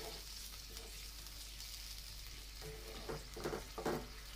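Egg curry in masala gravy simmering and sizzling faintly in a metal pan, with a wooden spatula scraping and knocking against the pan several times in the last second and a half as the eggs are turned. The gravy, thinned with a little water, is cooking down.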